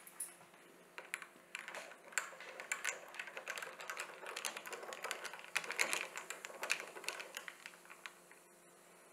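A metal spoon stirring ice cubes in a tall glass of soda drink, with quick, irregular clinking of spoon against ice and glass. It starts about a second in and stops about a second before the end.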